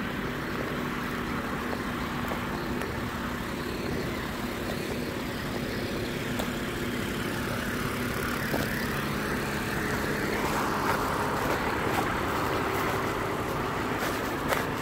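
Large military truck's diesel engine idling steadily, an even low hum that holds throughout.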